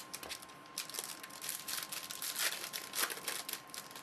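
Trading-card pack wrapper crinkling and crackling as it is handled, in a dense run of rustles that starts about a second in and peaks twice near the end.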